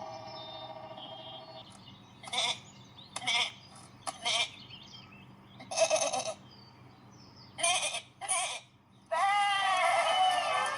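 Cartoon lamb and farm-animal voices making a string of short bleats and squeaks, about eight separate calls. Music comes in near the end.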